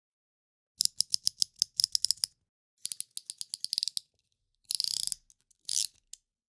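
Snap-off utility knife (cutter knife) with its blade slider being pushed out and pulled back, giving two runs of rapid ratcheting clicks. Near the end come two short scraping sounds and a final click.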